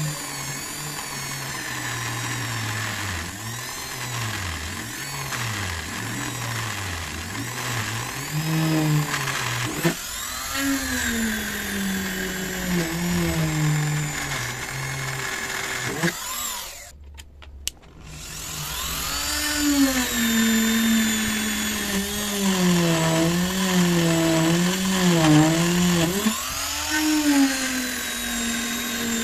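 Handheld electric rotary tool (mini drill) drilling through stacked 2 mm acrylic sheets, its motor whine wavering and dipping in pitch as the bit bites into the plastic. The motor cuts out for about a second and a half just past the middle, then runs again.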